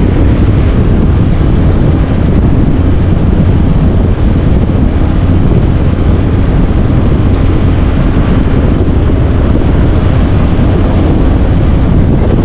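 Motorboat under way: a steady engine drone with wind buffeting the microphone.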